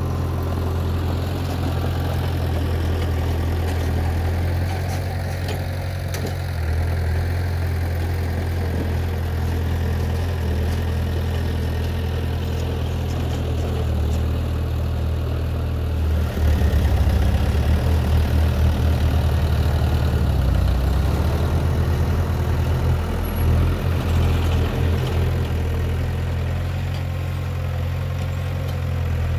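Heavy diesel engine of earthmoving machinery running steadily at a low pitch. About halfway through it grows louder and pulses quickly for several seconds, then settles back to a steady run.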